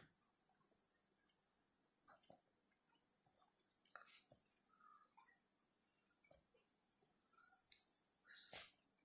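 Cricket trilling: a steady high-pitched chirping that pulses about eight times a second, with a few faint soft knocks.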